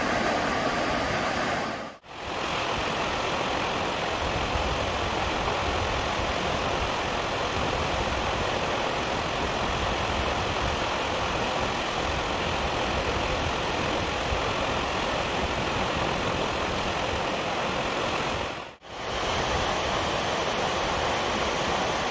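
Steady rushing roar of water released over the crest of Naruko Dam in its curtain-like 'sudare' release, sheets of water falling down the concrete dam face. The sound drops out briefly twice, about two seconds in and again a few seconds before the end.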